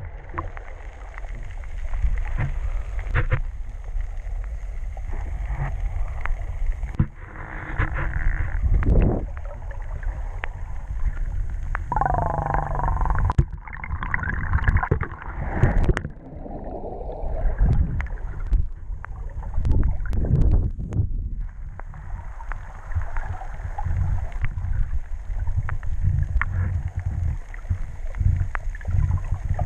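Underwater churning of shallow surf among rocks, heard muffled through a waterproof camera housing: a low rumble that swells and ebbs in surges, with gurgling bubbles and scattered clicks.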